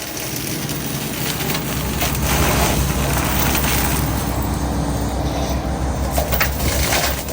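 Excavator-driven hydraulic flail mulcher spinning and shredding vegetation over the steady drone of the excavator's diesel engine under load, with scattered cracks of wood breaking. The sound grows louder a couple of seconds in and eases off near the end.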